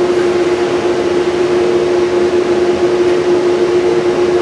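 Table saw running with a steady hum, its blade cutting into a large wooden bowl blank that turns on a jig above it.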